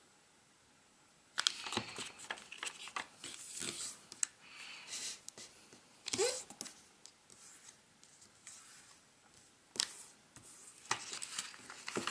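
A square sheet of origami paper being folded and creased by hand: irregular rustling and crinkling as fingers press and run along the folds, beginning after about a second and a half of quiet.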